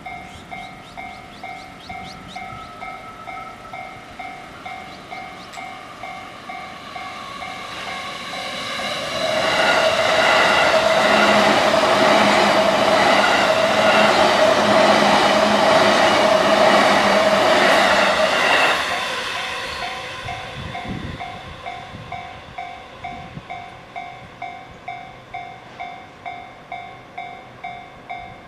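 Japanese level-crossing warning bell ringing in a steady repeating ding throughout. About nine seconds in, a JR E233 series electric commuter train passes over the crossing: its wheels and running gear rise to a loud, even rush for about ten seconds that drowns the bell, then fade away as the bell carries on.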